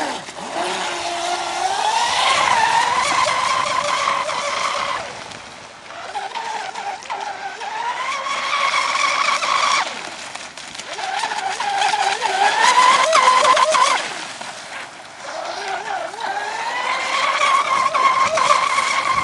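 Radio-controlled catamaran speedboat's motor whining at speed, its pitch climbing as the throttle opens, holding high, then falling back. This happens four times in a row.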